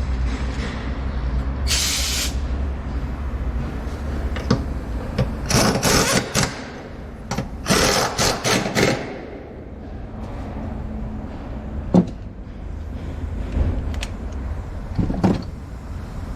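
Vehicle repair work noises: several short hissing bursts and a few sharp clicks over a steady low rumble.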